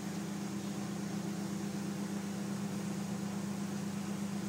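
Steady machine hum with an even hiss underneath, unchanging throughout.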